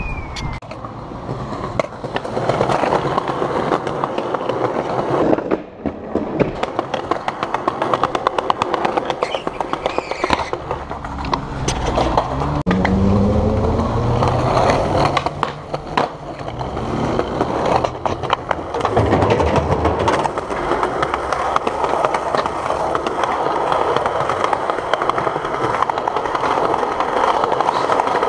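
Skateboard wheels rolling over asphalt and concrete sidewalk, a steady rumble with frequent clacks as the wheels cross cracks and seams.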